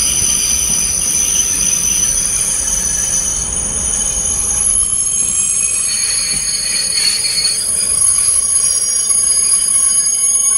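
Passenger train's steel wheels squealing on the rails in several steady high-pitched tones over a low running rumble. The rumble fades in the second half as the train slows toward a stop.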